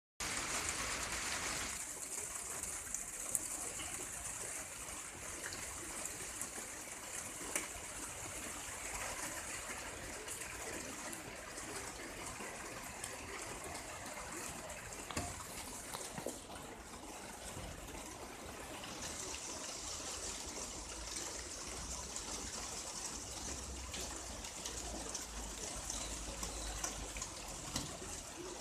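Very fine rain falling: a steady hiss with scattered faint ticks of drops.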